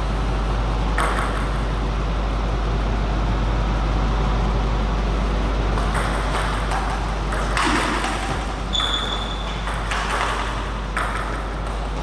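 Celluloid-style table tennis ball clicking off rackets and the table: an isolated hit early, then a rally of quick hits from about six seconds in. A steady low hum runs underneath, and there is a brief high squeak near the middle of the rally.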